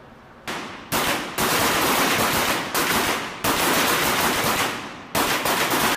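Pistol shots fired in quick succession on an indoor firing range, about half a dozen in five seconds. Each crack rings on in the room's reverberation, so the shots run together.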